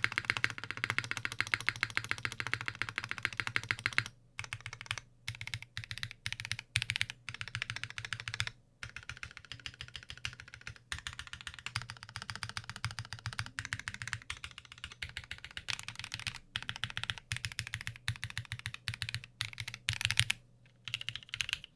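Typing on a Gem65 custom mechanical keyboard with lubed Novelkeys Cream linear switches, GMK keycaps and a full FR4 plate. A fast, dense run of keystrokes for about the first four seconds is followed by steady typing with short pauses.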